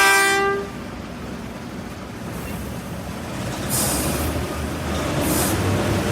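Heavy oil truck rig: a short horn blast right at the start, then its engine running low and steady, slowly growing louder, with two short hisses of air about four and five and a half seconds in.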